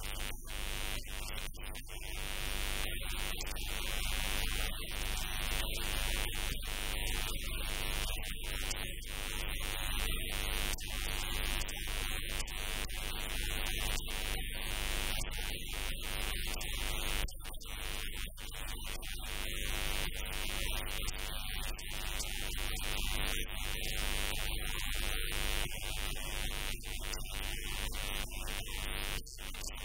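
Steady hiss and static from the recording, with a thin high whine and a low hum throughout; no voices come through.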